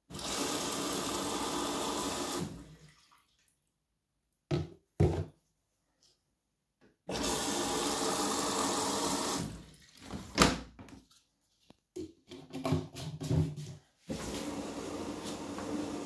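Hoover front-loading washing machine filling for its prewash: water rushes in three bursts of about two and a half seconds each, each starting and stopping sharply as the inlet valve opens and closes. Short knocks and clunks come in the gaps.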